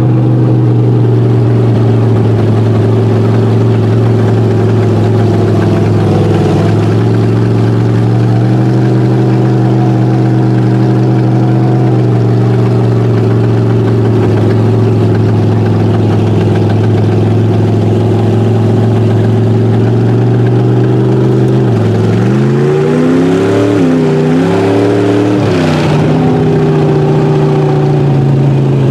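Mega mud truck's engine heard from inside the cab, running steadily at one pitch, then revving up and down several times about three quarters of the way through.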